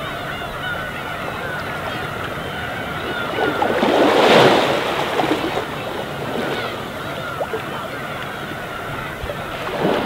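Small waves washing onto a rocky shore, one swelling up louder about four seconds in and another just before the end, under the constant overlapping calls of a large flock of gulls.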